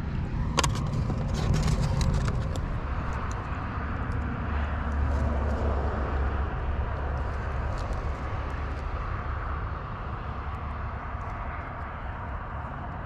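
Steady rumble of road traffic, swelling for a couple of seconds in the middle, with a few sharp clicks in the first few seconds.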